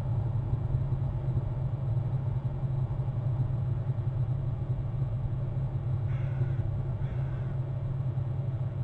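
A crow calling twice, about a second apart, with short harsh caws near the end, over a steady low rumble.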